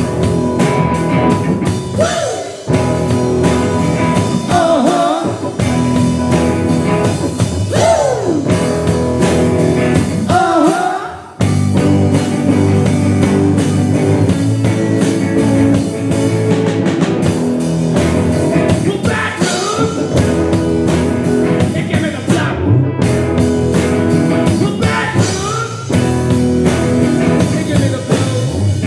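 Live rock band playing loud distorted electric guitars, electric bass and drum kit, with a singer's voice coming in over it at intervals. The sound drops away briefly about eleven seconds in, then the full band comes back.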